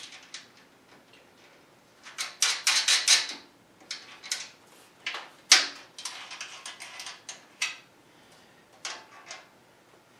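Metallic clicks, clinks and clatters of hands fitting bolts and hardware to a lathe's metal chip tray, with a quick run of clicks about two seconds in and the sharpest clack near the middle.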